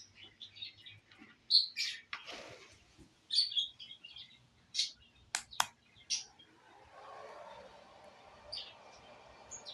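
Small birds chirping in short, high calls scattered through the stretch. A couple of sharp clicks come about halfway through, and a faint steady noise sets in near the end.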